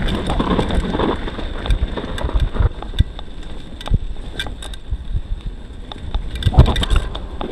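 Downhill mountain bike (YT Tues) rolling over gravel and grass: tyres rumbling, wind buffeting the microphone, and many sharp rattles and knocks from the bike. It eases off a few seconds in as the bike slows, with a loud bump near the end.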